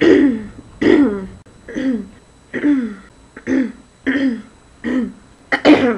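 A woman, hoarse from a head cold, making about eight short throat-clearing sounds at roughly one a second, each dropping in pitch; the loudest comes near the end.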